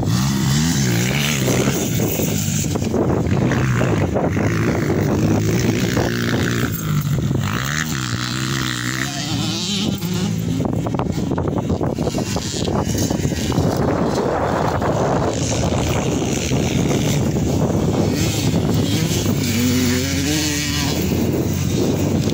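Motocross dirt bike engines running on a track, revving up and falling back over and over as the riders accelerate and ease off around the jumps.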